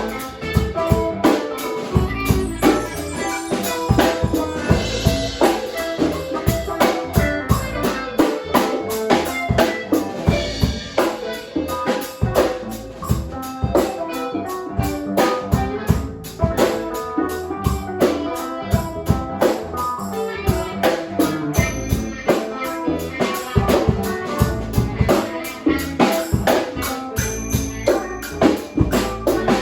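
Background music with a steady drum-kit beat and bass drum.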